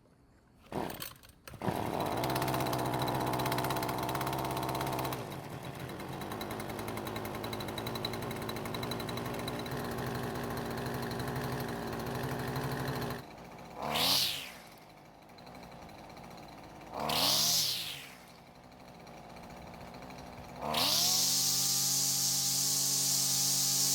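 Husqvarna string trimmer engine, the replacement swapped in from a parts machine, starting with two short pulls and settling into a steady run without stalling. Near the end it is revved up and down twice, then held at full throttle.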